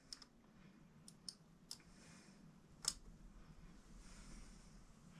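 A few faint, sharp clicks of a hex key working the screws on a 3D printer's base as they are snugged up, about five spread over the first three seconds, the loudest just before three seconds in.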